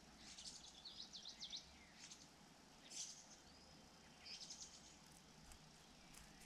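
Faint, high bird chirps in four quick runs, with a soft, lower arched note in between.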